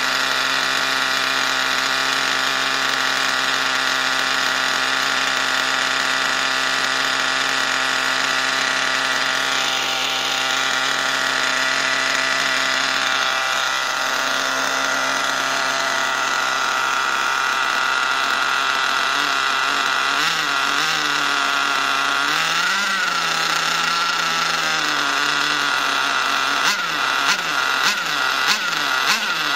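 Nitro RC car glow engine idling steadily and running a little rich while still being broken in. Its pitch wavers up and down for a few seconds past the middle, then several quick throttle blips come near the end.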